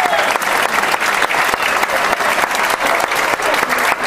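Audience applauding, a steady dense clatter of many hands clapping.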